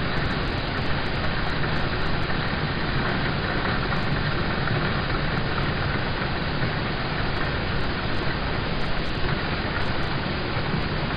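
Steady rain falling on a car's roof and windows, heard from inside the car as an even hiss.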